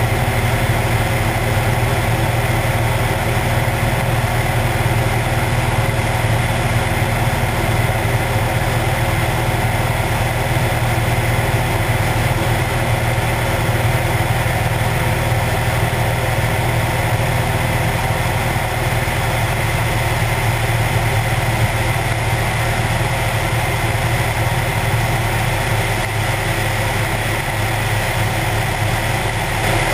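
Cessna 172 piston engine and propeller droning steadily in cruise flight, mixed with a constant rush of air over a camera mounted outside the cabin.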